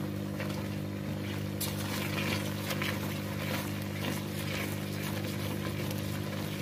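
Thick raw-mango chutney being stirred with a spatula in a metal pan, with faint bubbling and scraping as it cooks down near readiness. A steady low hum runs underneath.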